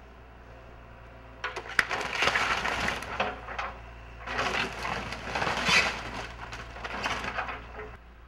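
Wood cracking, splintering and crushing as a wooden building is torn down. It starts about a second and a half in, in several noisy surges with sharp cracks, over a low steady hum.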